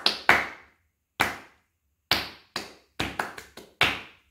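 Hand claps playing a rhythm pattern: single claps spaced apart, a quick run of four claps about three seconds in, then single claps again.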